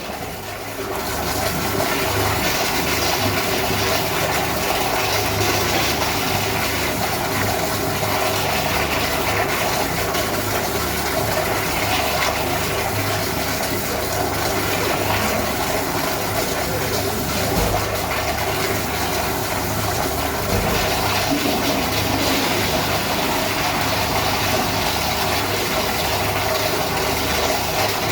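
Toilet flushing continuously, water rushing steadily into the bowl without letup: a flush that won't shut off.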